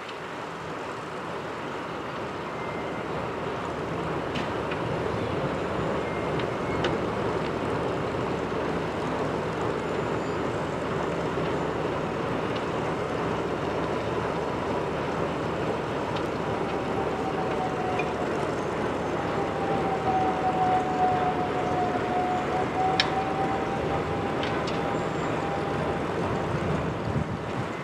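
SM-2 railway snow-removal train at work, a steady rushing mechanical noise. About halfway through, a whine joins it and wavers slightly in pitch. A few faint clicks sound on top.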